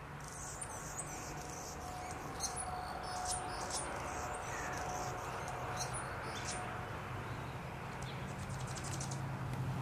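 Hummingbirds at a feeder giving short, high chip notes, scattered irregularly and thinning out after about seven seconds, over a steady low hum.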